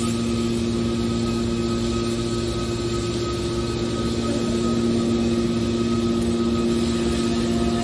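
Hydraulic scrap aluminium can baler running, its motor and hydraulic pump giving a steady, even hum with a few fixed tones.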